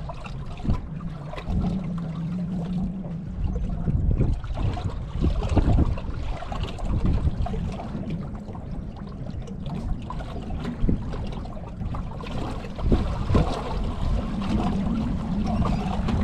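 Water lapping and sloshing against a small fishing boat's hull, with wind rumbling on the microphone, a few soft knocks, and a faint low steady hum briefly near the start and again near the end.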